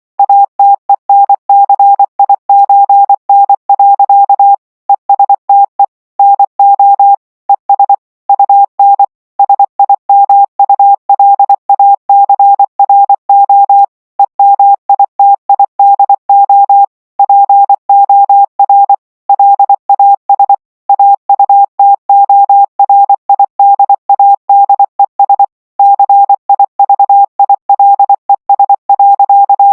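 Emergency alert system alarm: a single loud, mid-pitched electronic beep tone keyed rapidly on and off in an irregular, Morse-code-like pattern, with short pauses between groups.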